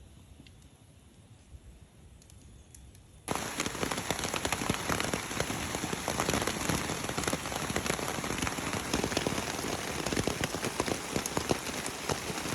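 Rain falling on a surface, a dense spray of small drop impacts that starts suddenly about three seconds in after a quiet stretch.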